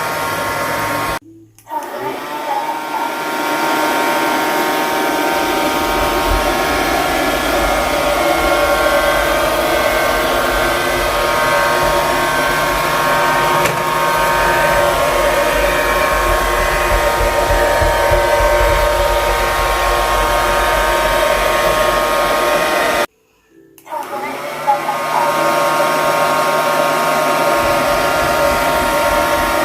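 Sapper curling robot vacuum cleaner running: a steady motor and fan whir with a thin high whine, and a low rumble through the middle stretch. The sound drops out twice for under a second, about a second in and again about three-quarters of the way through.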